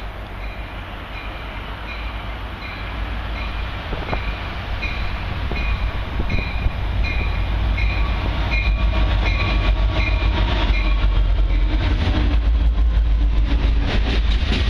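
A slow Union Pacific freight train of oil tank cars rolls past, its rumble growing louder, with wind buffeting the microphone. A short high ding repeats about twice a second for most of the stretch, then fades.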